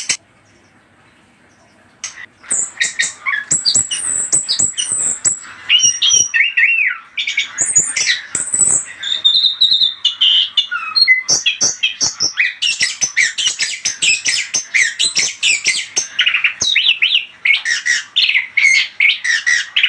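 Orange-headed thrush (anis kembang) singing a rapid, varied song of chattering notes and whistles, starting after a pause of about two seconds and running on almost without a break.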